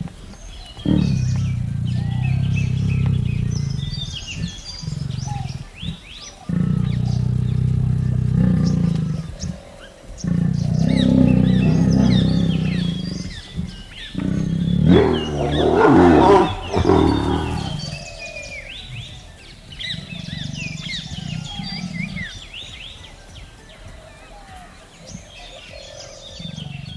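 Tiger growling in long, low rumbles, rising to a louder roar about two-thirds of the way through, then fading. Birds chirp in the background, with soft background music.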